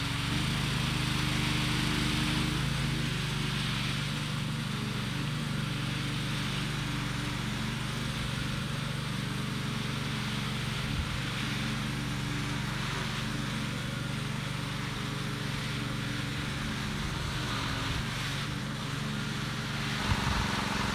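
Power trowel's small gasoline engine running steadily as the machine makes its first pass over the fresh concrete slab.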